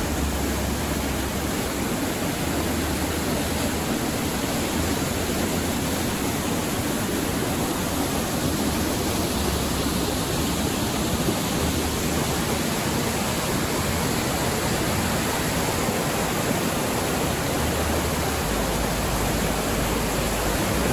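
Mountain creek rushing over boulders in small cascades and falls: a steady rush of white water.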